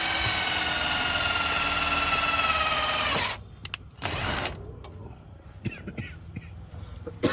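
Electric drill running for about three seconds, its whine sinking slightly in pitch as it works, then stopping, with a second short burst about a second later.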